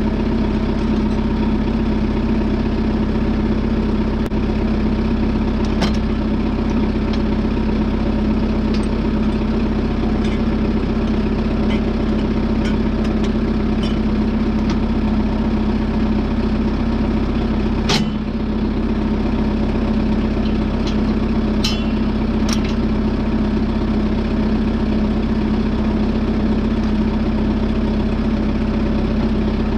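Kubota tractor's diesel engine idling steadily. A few sharp clicks and knocks come from hitch and driveline parts being handled, the loudest about eighteen seconds in.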